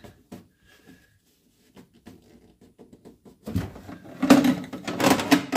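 A cloth wiping a vehicle panel clean before sound-deadening foil goes on: a few faint clicks and handling noises, then from about three and a half seconds in a run of quick, loud rubbing strokes.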